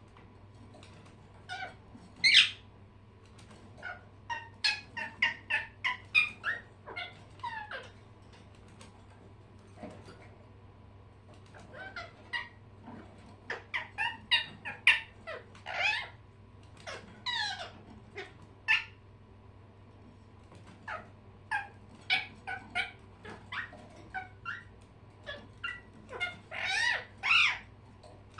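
Pet birds chirping and calling in clusters of short, sharp notes, some sliding in pitch, with short pauses between the clusters.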